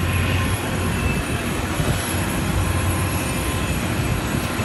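Aircraft engine noise: a steady, even rumble with no breaks.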